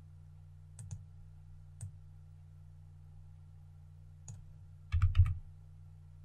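Computer mouse and keyboard clicks: a quick pair of clicks about a second in, single clicks near 2 s and 4 s in, then a louder rattle of several key taps about 5 s in. A steady low hum runs underneath.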